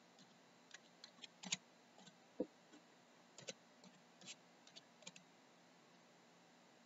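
Faint typing on a computer keyboard: scattered, irregular key clicks that stop about five seconds in.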